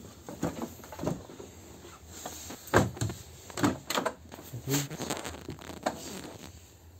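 Lada Kalina car door being swung by hand on a newly fitted door check strap, which clicks into its hold positions: a series of separate clunks and clicks, the loudest about three seconds in.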